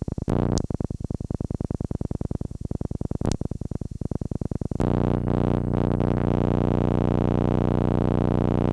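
Electronic synthesizer music: a rapidly stuttering pulse, about ten a second, that gives way about five seconds in to a single held, steady chord.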